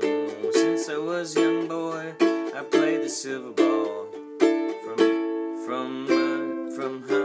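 Acoustic stringed instrument strummed in chords, a steady run of strums roughly one every three-quarters of a second, each ringing out before the next.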